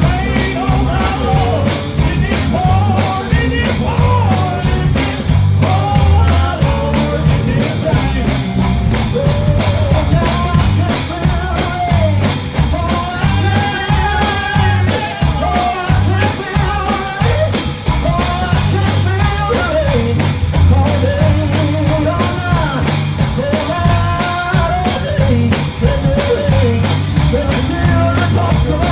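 Live gospel band music with a drum kit keeping a fast, steady beat, a bass line, and a singer's voice carrying the melody.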